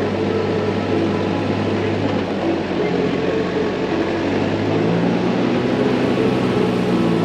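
Off-road vehicle driving on an unsealed mountain track: a steady engine hum over rumbling tyre and road noise, with the engine note shifting about five seconds in.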